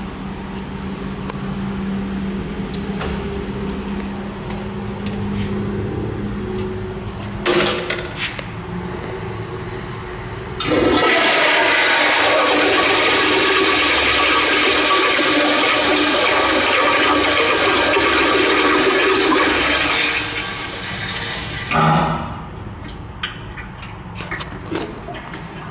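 Stainless steel toilet flushed from a wall push-button: a loud rush of water starts abruptly about ten seconds in, holds steady for about nine seconds, then tapers off, with a thump shortly after. Before the flush there is a steady low hum and a single click.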